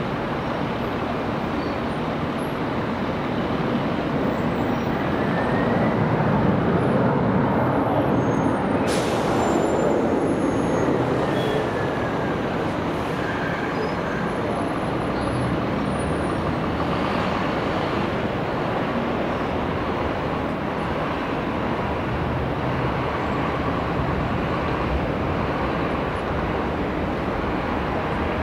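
Jet airliner engines running, a steady rushing noise that grows louder a few seconds in and eases off again after about ten seconds.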